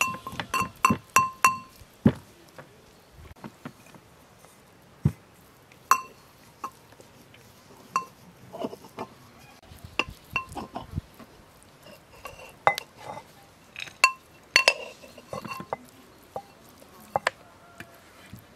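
Brass pestle striking inside a brass mortar as walnuts are crushed: ringing metallic clinks, each with the same bell-like pitch, mixed with duller knocks. They come in a quick even run of about three a second at the start, then at irregular intervals.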